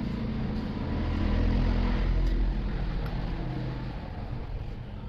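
A motor vehicle's engine going by, a low rumble that swells about a second in and then fades away.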